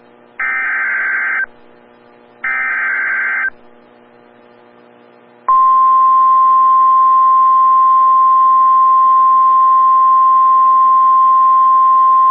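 NOAA Weather Radio EAS alert signal: the last two of the three SAME digital header bursts, each a raspy electronic screech lasting about a second, about a second apart. After a two-second pause, about five seconds in, the loud steady 1050 Hz warning alarm tone begins; it marks the start of a new severe thunderstorm warning.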